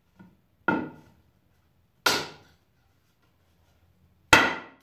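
Hatchet chopping into a wooden board: three sharp strikes about a second and a half apart, the last the loudest, with a faint tap just before the first.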